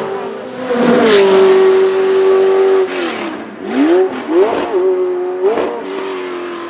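Porsche 908/3's 3.0-litre flat-eight race engine held at high revs for about two seconds, then dropping sharply about three seconds in and giving several quick rising blips before settling to a lower, quieter note: the car lifting off and downshifting with throttle blips as it brakes.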